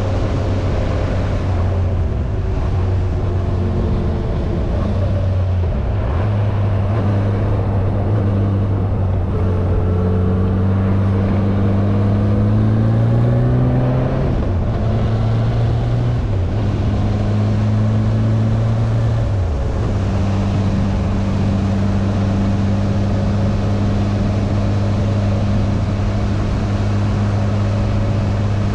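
Yamaha inline-four motorcycle engine running under way at steady revs, over a constant rush of riding noise. About halfway through the engine note climbs for a few seconds, then drops sharply, and there are a few smaller steps in engine speed.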